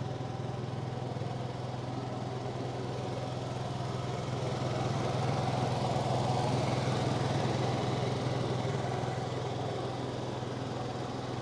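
Honda 3000 inverter generator running steadily, muffled inside its closed, ventilated box, a low even hum that swells slightly midway.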